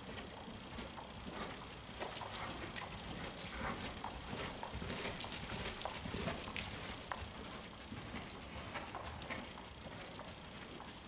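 A ridden horse's hoofbeats on dirt arena footing, louder as the horse passes close by a couple of seconds in, then fading as it moves away.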